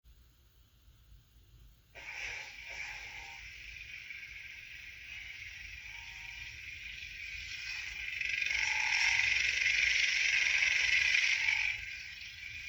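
Kylo Ren lightsaber sound font ('Son of Darkness') playing through a replica saber's Ultrasabers Diamond sound board: an unstable, crackling hum that comes in suddenly about two seconds in, grows louder for a few seconds, and drops back near the end.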